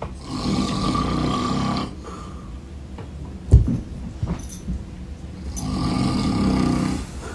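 An elderly man snoring loudly: two long, rasping snores about five seconds apart. Between them comes a sharp thump, with a few faint clicks after it.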